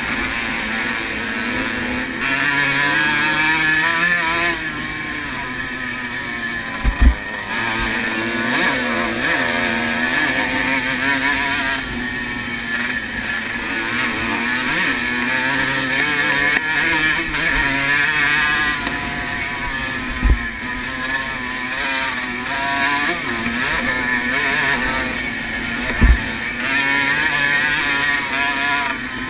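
A 1980 Honda CR125R's two-stroke single-cylinder engine revving hard and falling off again and again as it is ridden through the gears over a dirt motocross track, with wind and track noise. Three short low thumps cut in along the way.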